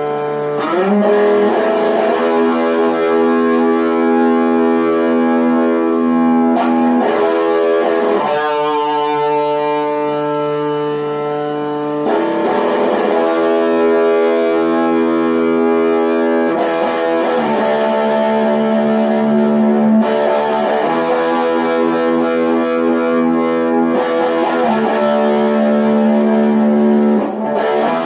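2013 Gibson SG Junior electric guitar with John Birch Magnum 4 and Hyperflux 5 pickups, played through a Vox Night Train NT2H valve head and a Vox V112NT cabinet with a Celestion G12H75 Creamback speaker. Held chords ring out and change every few seconds.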